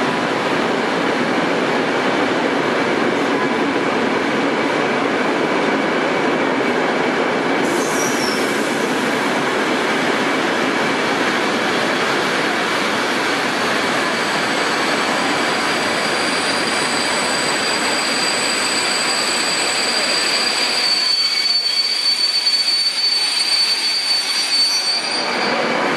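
Passenger train carriages rolling past at a station platform and slowing, the wheels rumbling steadily. From about halfway a high, steady squeal rises from the brakes and grows as the train comes almost to a stop, while the low rumble fades away.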